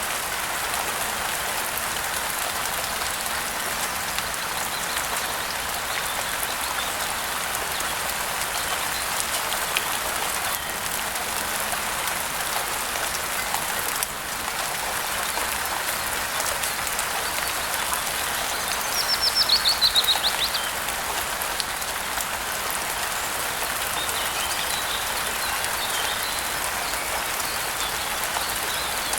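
Steady rain pattering, with a bird breaking in about two-thirds of the way through with a quick run of falling chirps, the loudest sound here. A few fainter chirps follow soon after.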